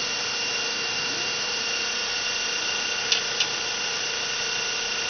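Steady machinery noise, a loud even hiss carrying a fixed high whine and a lower hum, with two light clicks close together about three seconds in.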